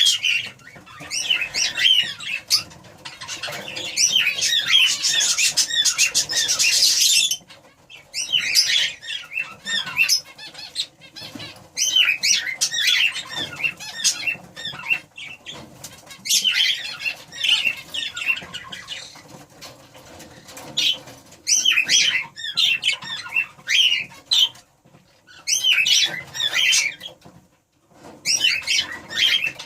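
Budgerigars chattering and squawking in short runs of chirps, with a spell of wing flapping from about four to seven seconds in.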